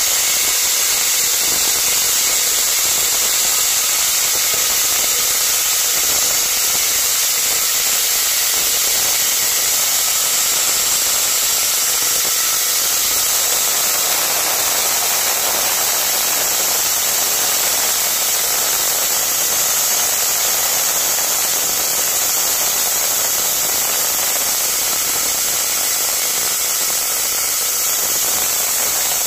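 Pressurised gas hissing loudly and steadily from a CNG skid's pipework, with no pauses.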